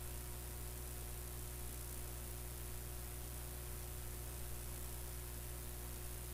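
Steady low electrical hum under a faint hiss, with nothing else happening.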